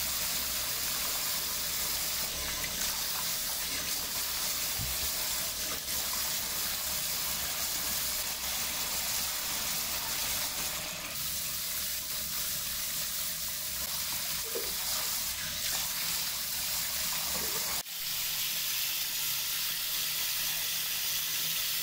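Tap water running steadily into a washbasin, splashing over a baby's head as her hair is rinsed.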